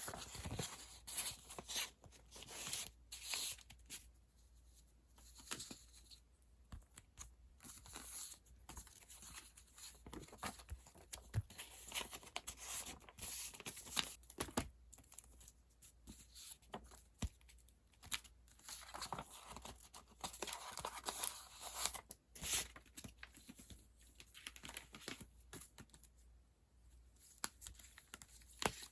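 Paper and plastic being handled at close range: irregular rustling, crinkling and tearing with small clicks and taps, as of tickets and packaging being sorted and packed by hand.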